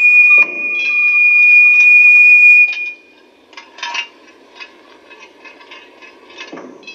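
A loud, steady, high whistle-like tone from a film soundtrack, cutting off suddenly under three seconds in. It is followed by faint, scattered clicks and taps.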